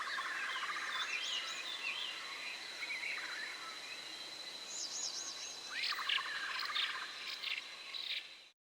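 A fowl calling twice, a short rising note followed by a rapid pulsing call, over other birds' high wavering trills and a steady high insect drone. The sound cuts off suddenly near the end.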